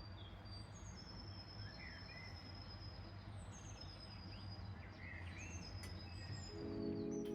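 Several songbirds singing, with high whistled notes and short chirps, over a faint steady low hum. Soft music fades in near the end.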